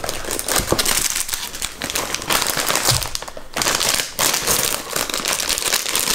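Rustling and crinkling of a fabric shopping bag and the plastic-wrapped sweet packets inside it as they are rummaged through and pulled out, with a short lull a little past halfway.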